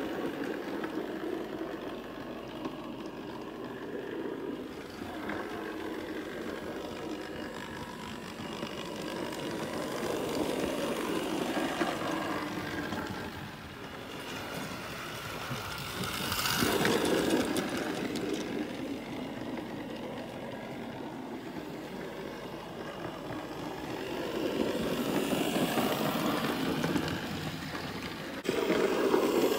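Hornby Dublo 00 gauge model trains running on the track: a continuous motor whirr and wheel rumble that grows louder and fades several times as the trains pass close by.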